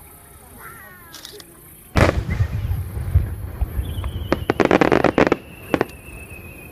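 Fireworks display: a shell bursts with a loud bang about two seconds in, followed by a rumbling echo, then a dense rapid crackle a couple of seconds later. A long, high, thin whistle runs through the second half, falling slightly in pitch.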